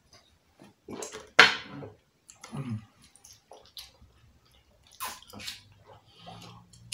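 Close-miked eating and drinking mouth sounds: gulps and wet clicks of drinking juice, then chewing and lip smacks, in short irregular bursts, the loudest about a second and a half in.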